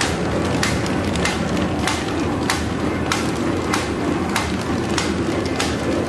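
Paper bag making machine running: a steady mechanical rumble with a sharp knock repeating evenly, a little under twice a second, as it cycles.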